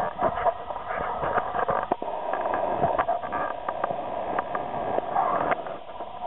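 Lake water splashing and sloshing at the boat's side as a small fish is let go by hand in the water, with scattered sharp splashes and knocks.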